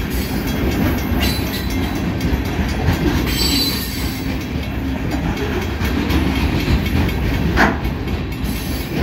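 Freight train of loaded flatcars rolling past: a steady rumble and clatter of steel wheels on rail, with one sharper clank near the end.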